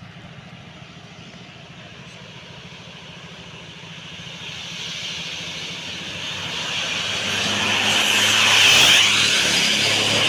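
A road vehicle approaching and passing close by: engine and tyre noise that grows over several seconds and is loudest about nine seconds in.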